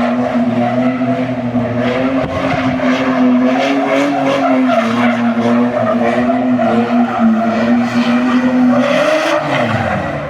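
Car doing a burnout: the engine is held at steady high revs while the driven tyres spin and squeal on the pavement, burning rubber. Near the end the revs change and drop off.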